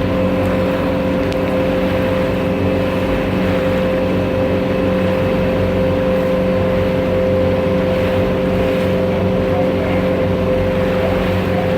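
Passenger boat's engine running steadily under way, heard from on board: an even hum with a strong steady drone and a rush of water and wind noise beneath it.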